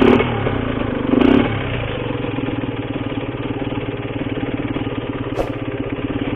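Cagiva Mito's single-cylinder two-stroke engine with an Arrow exhaust idling, with a fine, even pulsing beat. It swells briefly twice in the first second and a half, then settles to a steady idle.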